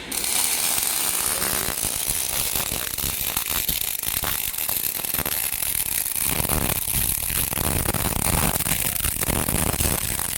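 Robotic arc welding on steel structural parts: a steady, dense crackle and sizzle of the welding arc, with irregular sputtering.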